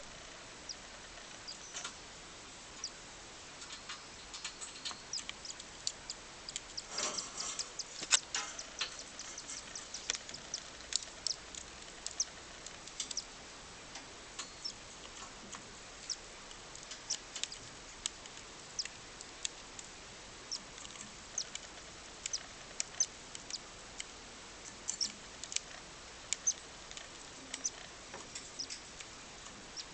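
Newly hatched cockatiel chick peeping: short, thin, high-pitched peeps at irregular intervals, with a busier, louder run about seven to nine seconds in.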